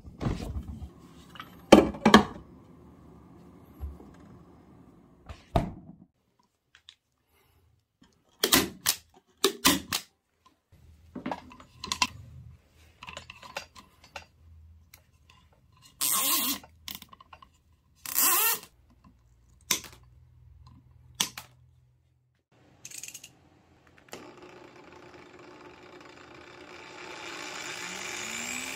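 A run of separate sharp clicks and knocks from hands handling tools and small objects, with short silences between them. Near the end an angle grinder's motor whirs up, its pitch rising as the knob of its speed controller is turned.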